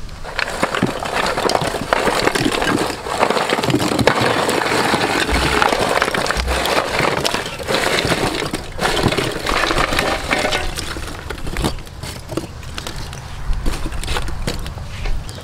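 Lumps of charcoal tipped from a metal bowl, tumbling and clinking against each other and the bowl in a dense rattle. After about eleven seconds it thins to scattered clinks as the pieces are shifted by hand.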